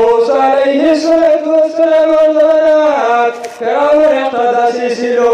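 A man's voice chanting a sermon in long, drawn-out melodic phrases, the tuneful delivery of a Bengali waz preacher. One held note slides down about three seconds in, and after a short breath a second long note begins.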